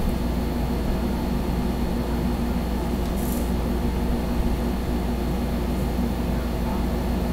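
A steady low hum, with a short high hiss about three seconds in.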